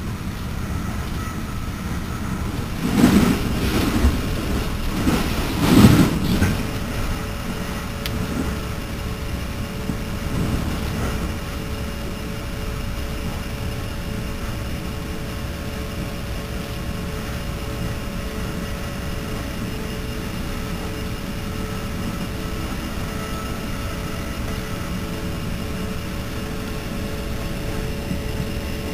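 Steady rolling rumble heard from inside an NJ Transit Multilevel passenger car moving at speed, with two louder rattling surges about three and six seconds in. A faint steady hum joins after the second surge.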